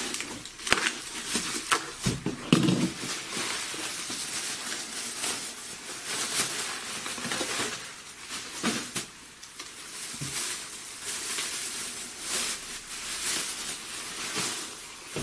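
Bubble wrap and plastic bagging crinkling and crackling as a wrapped bundle is cut open and pulled apart by hand, with a run of sharper snaps in the first few seconds.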